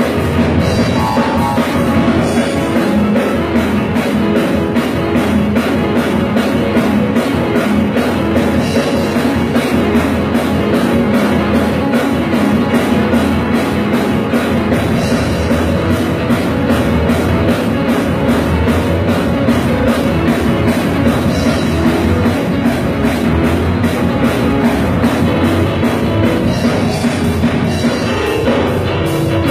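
Live instrumental band music: an electric keyboard playing with a drum kit, loud and steady with no break.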